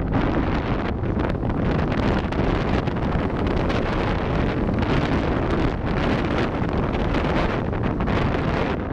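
Wind buffeting the microphone of a camera carried on a paraglider in flight: a loud, steady rumbling rush.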